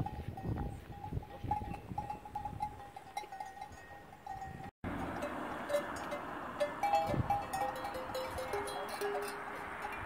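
Cowbells on cows lying and chewing the cud, clinking irregularly as the animals move their heads; several bells of different pitch ring against each other in the second half.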